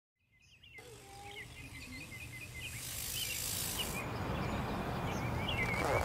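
Outdoor ambience fading in: small birds chirping in short, repeated phrases over a steady low hum, with a brief high hiss about three seconds in.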